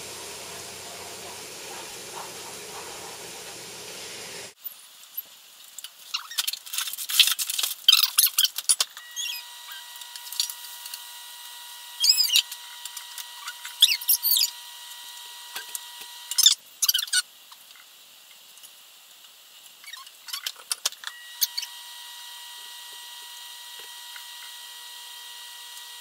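Milk and cocoa sizzling with a steady hiss as it heats in a small non-stick saucepan on an electric coil burner, cut off abruptly about four and a half seconds in. After that come scattered light clicks and short squeaky chirps, with a faint steady whine coming and going.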